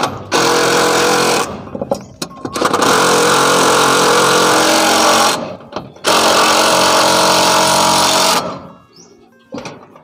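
DeWalt DCF801 cordless impact driver with an 8 mm socket hammering screws into a wooden board to fasten a satellite dish pole mount. It runs three times: about a second, then about two and a half seconds, then about two seconds, with short pauses between.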